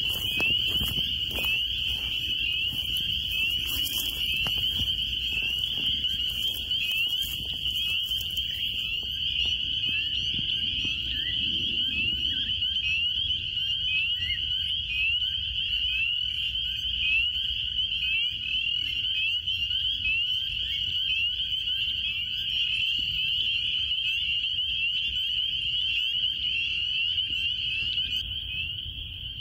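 A dense chorus of frogs: many overlapping high, rising calls, repeated over and over, blend into one continuous ringing sound. Some rustling knocks sound during the first several seconds.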